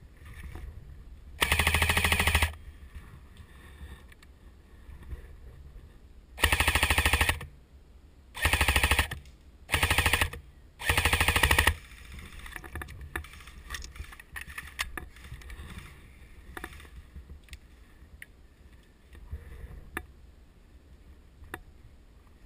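Airsoft rifle firing full-auto in five loud bursts of rapid, evenly spaced shots: one about a second long near the start, then four shorter bursts in quick succession in the middle.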